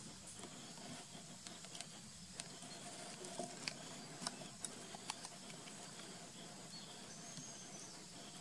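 Quiet outdoor ambience with a faint steady high insect hum, and a few light sharp clicks about three to five seconds in, from small stones knocked as a baby macaque picks among the pebbles.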